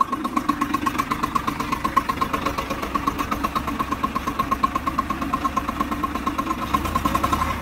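Tractor's diesel engine running steadily at low revs as the tractor drives along, with a rapid, even beat.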